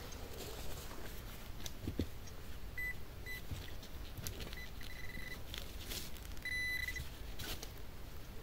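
Metal detector beeping over a target in freshly dug soil: a few short high beeps, then two longer steady tones of the same pitch. The target is an aluminium 20-groszy coin. Light scrapes and rustling of soil come through between the beeps.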